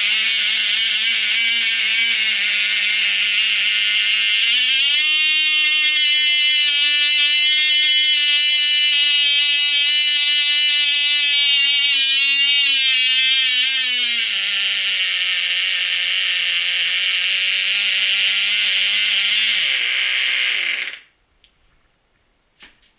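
Cox Medallion .051 two-stroke model glow engine with an RC carburettor running at a high-pitched scream. About four seconds in it is throttled up to a higher speed, a little after halfway it drops back to a lower speed, and about twenty seconds in its speed sags and it stops abruptly. A faint click or two follows.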